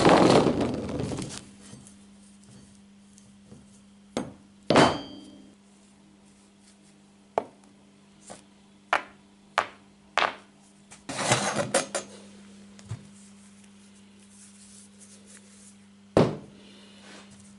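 Steel workpieces (a length of rebar, a bolt, nuts and a flat steel bar) set down one at a time on an OSB board: a heavy knock at the start, then a string of separate sharp metal clicks and clinks, one with a brief ring, a quick rattle of several about eleven seconds in, and a last knock near the end. A steady low hum runs underneath.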